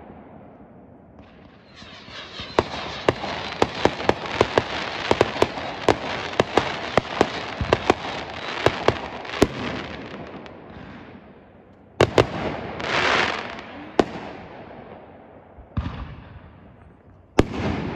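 Consumer aerial fireworks going off: a dense run of crackling and rapid sharp pops lasting several seconds, then a few separate loud bangs a second or two apart with a short hiss between them, the loudest bang near the end.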